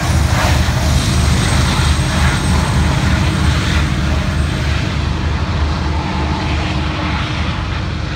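Diesel locomotive engine running close by: a loud, steady, low throbbing rumble that eases slightly toward the end.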